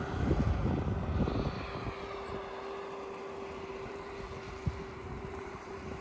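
Wind buffeting the microphone on a moving bicycle, in heavy gusts for the first second and a half and then easing, over a steady hum. A single short knock comes about two-thirds of the way in.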